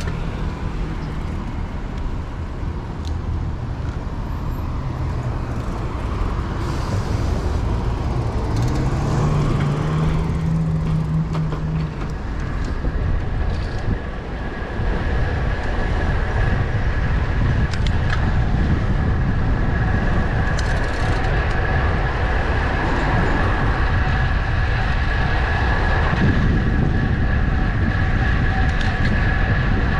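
City traffic and a low rumble of wind and road noise heard from a moving bicycle. A steady high whine joins about twelve seconds in and runs on.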